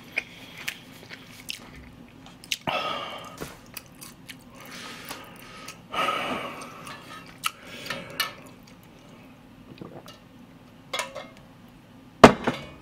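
Close-up chewing of a mouthful of spicy fried jjolmyeon noodles, with many small wet mouth clicks and a couple of short breathy rushes. Near the end comes a single sharp knock, the loudest sound, as a steel tumbler is handled.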